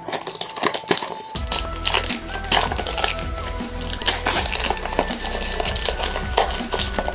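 Clear plastic packaging crinkling and rustling as a small figure box is opened by hand, with background music of steady held notes throughout.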